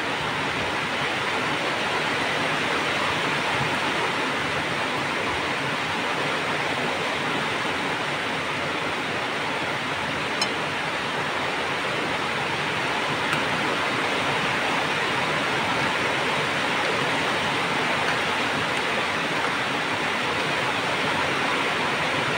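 Aluminium pot of vegetable soup at a rolling boil, bubbling steadily, with a light metal clink of the ladle against the pot about ten seconds in and again a few seconds later.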